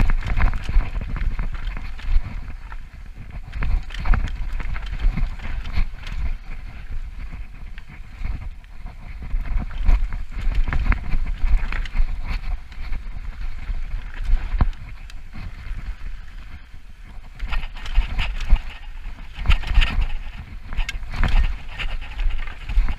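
Mountain bike descending a rough dirt trail: tyres running over dirt and rocks, with irregular rattling and clatter from the bike and a low wind rumble on the microphone. The rattling gets heavier near the end.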